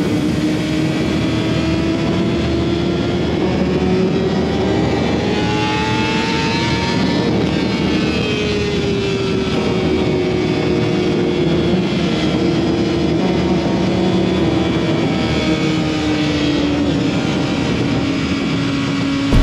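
A 2005 Yamaha YZF-R6's inline-four engine with a Yoshimura exhaust, running steadily at high revs. Its pitch climbs slowly for about seven seconds, then eases back down, with no sharp breaks.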